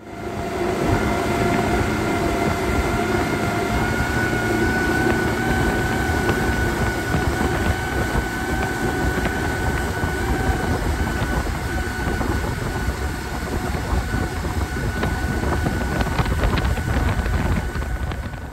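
Home-built electric outboard, a NetGain HyPer9 electric motor on a Johnson outboard lower unit, pushing an aluminum boat at speed: a steady high whine from the drive over rushing water. Wind buffets the microphone throughout. The sound cuts off suddenly at the end.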